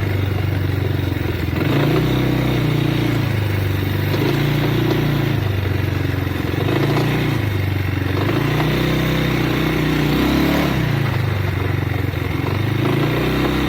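Triton Baja 300 engine revving up and dropping back repeatedly, about every two seconds, with a metallic rattling and knocking from the crankcase. The owner hears this rattle when pulling away, and at times it stops the machine from accelerating.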